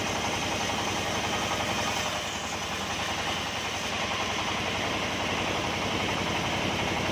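Sawmill's engine running steadily at an even speed, with a rapid regular firing pulse.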